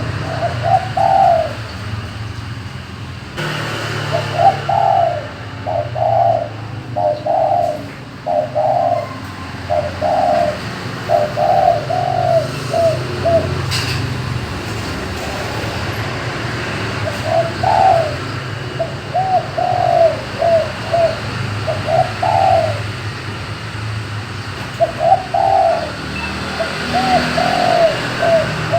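Bekur dove cooing in repeated phrases of short coo notes, each phrase a run of several quick notes, with pauses between phrases. A steady low hum runs underneath.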